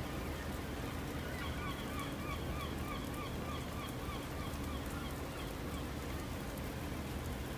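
Gull calling in a rapid run of short, repeated notes, about three a second, that starts about a second in and fades out after about four seconds, over a steady background hiss.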